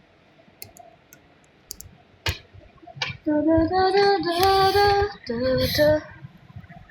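A woman's voice singing a short melody of held, stepping notes for about three seconds, starting about three seconds in, after a single sharp click.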